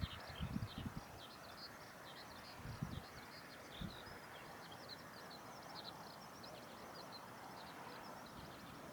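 Small birds chirping rapidly and continuously over a faint steady background hiss, with a few soft low thumps in the first second and again around three to four seconds in.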